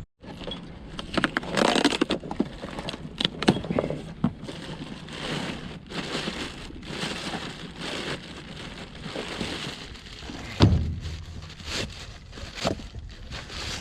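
Close-up handling noises of hands working with parts: irregular crackling and scraping with scattered clicks, and one sharp knock about ten and a half seconds in.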